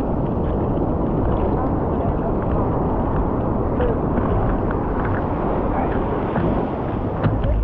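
Seawater rushing and sloshing against a surfboard in the surf, heard close up from a camera mounted on the board: a steady, dense wash.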